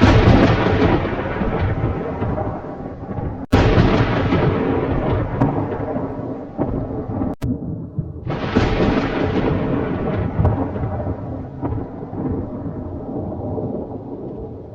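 Thunder rumbling: three loud peals, one at the start, one about three and a half seconds in and one about eight seconds in, each starting suddenly and rolling on as it slowly fades.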